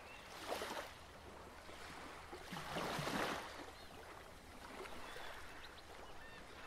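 Ocean surf: waves washing in with a hiss that swells twice, the second swell the louder, with a few faint high chirps over it.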